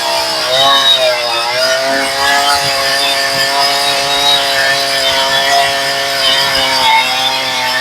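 Tuned chainsaw with a freshly sharpened semi-chisel chain cutting through a dry stringybark log under load. The engine pitch dips twice as the chain bites in the first second or so, then holds steady through the cut, running well and cutting cleanly.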